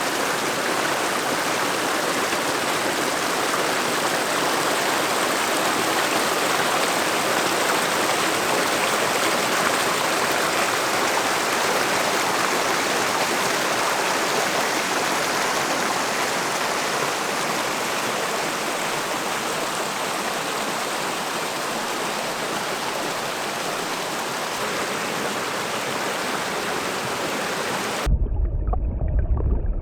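Steady, unbroken rush of water, like heavy rain or a fast stream. Near the end it cuts abruptly to a different, deeper sound.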